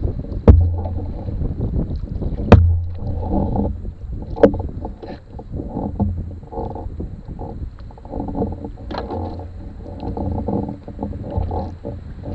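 Aluminum canoe being paddled through choppy water: water sloshing and slapping against the metal hull with low thuds. Sharp knocks against the hull come about every two seconds in the first half.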